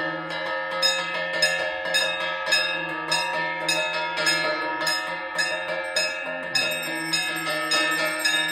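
Temple bells struck repeatedly during an evening arati, about two strikes a second, their ringing tones running on and overlapping.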